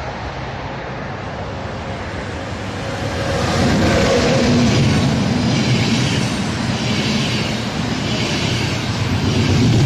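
ÖBB class 1116 Taurus electric locomotive passing at speed with a train of passenger coaches: a growing rush as it approaches, swelling about three seconds in with a brief motor hum as the locomotive goes by. This is followed by the steady rolling noise of the coaches, with a rhythmic wheel clatter about once a second.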